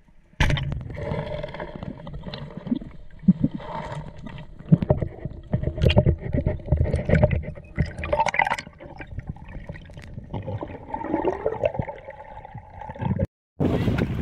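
Water gurgling and sloshing close to the microphone, with irregular knocks throughout, starting suddenly just after the beginning and cutting off abruptly near the end.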